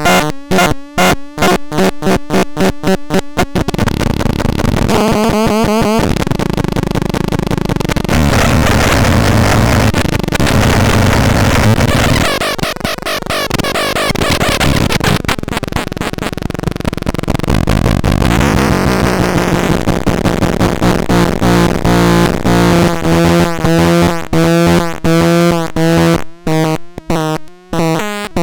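Electronic synthesizer sounds: fast staccato repeated notes give way a few seconds in to a dense, distorted, noisy wash, and in the last third pulsing pitched notes with a wavering pitch come back.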